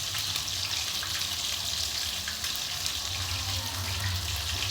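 Mushroom gravy cooking in a pan on the stove, a steady sizzling hiss with a low hum under it.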